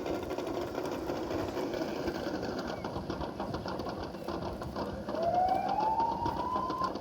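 Rapid, steady mechanical clatter of a small machine, with a single smooth rising whine from about five seconds in that stops just before the end.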